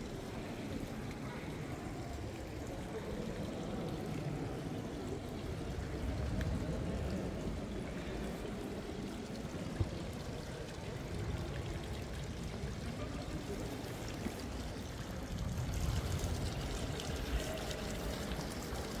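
Water from a tiered marble fountain pouring and splashing steadily into its stone basin.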